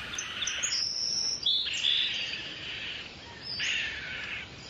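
Outdoor woodland ambience of birds and insects calling: a rough, hissy call comes in three spells of about a second each, over a thin, steady high note.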